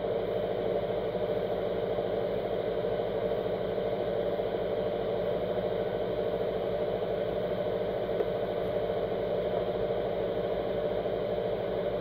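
Steady mechanical hum with a fine rattle from a switched-on 12-volt power supply.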